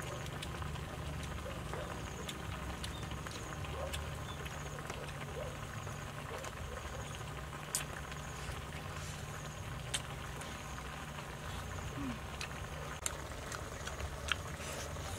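Insects chirping in short repeated trills over a steady low rumble, with a few sharp clicks now and then.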